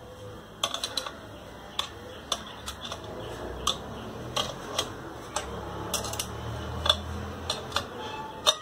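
A metal spanner clicking and clinking against the nuts and threaded rods of a homemade wrench as the nuts are tightened, in irregular sharp ticks, a few in quick succession and the loudest near the end.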